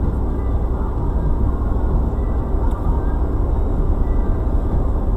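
Steady low rumble of a moving car heard from inside its cabin: engine and tyre noise on a snow-covered road.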